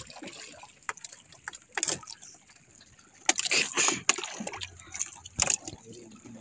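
Sea water sloshing and splashing against the hull of a small outrigger fishing boat, with scattered light knocks on the boat. Louder splashes come about two seconds in, between three and four seconds, and once more near the end.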